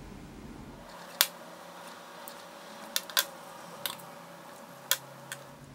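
A handful of small sharp clicks, the loudest about a second in, as the metal contacts of a solderless clip-on RGB LED strip connector are pressed down with a small metal tool to tighten the connection.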